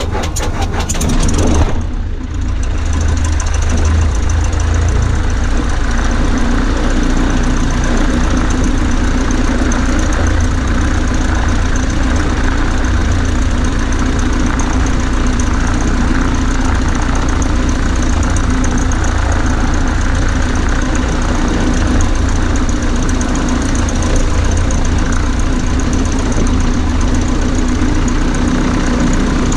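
Cessna 140A's single piston engine and propeller running steadily, with a brief clatter in the first two seconds.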